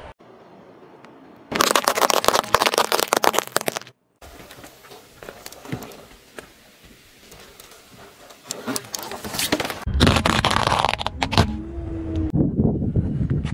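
Objects crushed under a car tyre on asphalt, crackling and crunching in a few short bursts separated by abrupt cuts. A brief wavering tone sounds near the end.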